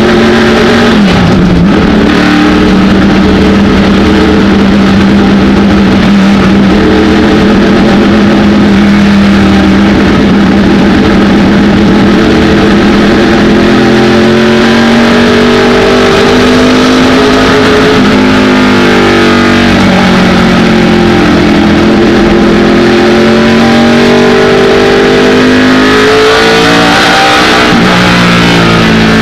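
ARCA stock car's V8 engine at racing speed, heard loud from inside the cockpit. The engine note dips about a second in, holds fairly steady, then falls and climbs again twice in the last third as the car lifts for the turns and accelerates out of them.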